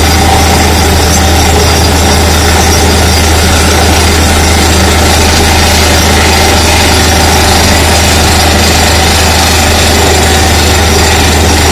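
Truck-mounted DTH (down-the-hole hammer) drilling rig running while drilling: a loud, steady machine noise with a deep hum underneath, as compressed air blows dust and cuttings up out of the borehole.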